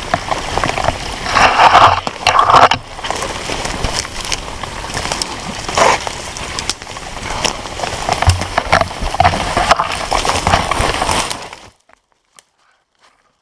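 Footsteps crunching and rustling through forest undergrowth and brush on a steep climb, an uneven crackling with many sharp snaps. It cuts off abruptly near the end, leaving only a few faint ticks.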